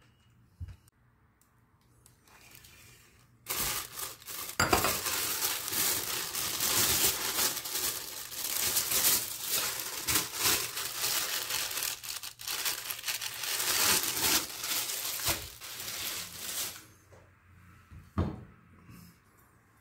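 Thin plastic bag crinkling and rustling as it is handled and opened, starting about three seconds in and lasting some thirteen seconds. A single knock follows near the end.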